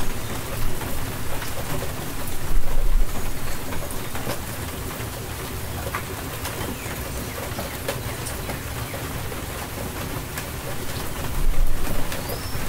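Steady rain falling in an even hiss, with low rumbles of thunder swelling about two and a half seconds in and again near the end.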